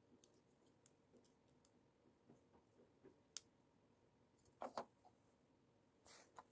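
Small plastic LEGO pieces being handled and pressed together. There are faint scattered clicks, a sharp click a little over three seconds in, a louder pair of clicks just past the middle, and a short scraping rattle near the end.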